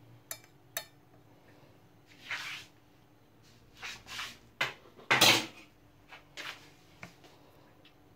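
Tableware on a tray being handled: two sharp clicks in the first second, then scattered short knocks and scrapes, the loudest about five seconds in.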